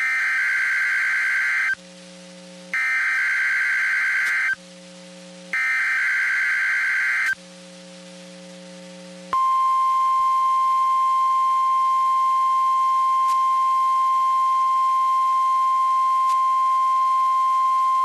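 NOAA Weather Radio Required Weekly Test: three short bursts of SAME digital header data, each a harsh warbling screech lasting under two seconds, about a second apart. About two seconds after the last burst comes the steady 1050 Hz warning alarm tone, held for about nine seconds, over a faint steady hum.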